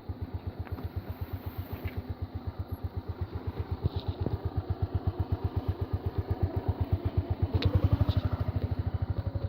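Motorcycle engine idling with a steady, even beat of about eight pulses a second, growing a little louder near the end.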